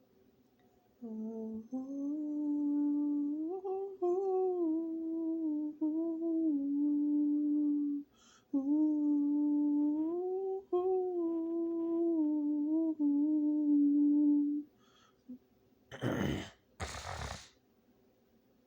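A man humming a wordless melody unaccompanied in two long phrases, holding notes and sliding up and down between them. Near the end come two short, loud noisy bursts of breath or sound.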